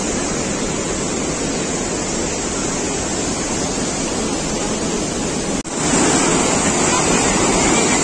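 Muddy floodwater rushing over a low concrete weir and through rocky rapids: a steady, loud rush of water. It cuts out for an instant about five and a half seconds in, then comes back a little louder as the churning white water fills the picture.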